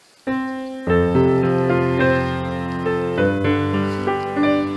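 Background music played on a keyboard: held chords that start about a third of a second in, grow fuller about a second in, and change every second or so.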